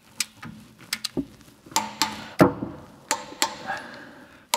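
Hand torque wrench clicking as the wheel nuts of a Jaguar XJR are tightened: a series of sharp, irregular metallic clicks, the loudest about two and a half seconds in.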